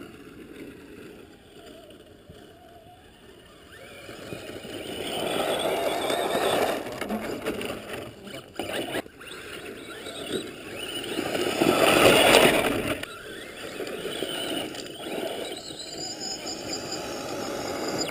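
Electric RC trucks running on sand: a thin motor and gear whine with rushing tyre-and-sand noise that swells twice, loudest about twelve seconds in.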